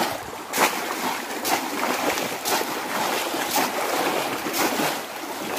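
Water splashing as a bamboo polo fish trap is plunged again and again into shallow river water, about once a second, over the wash of people wading.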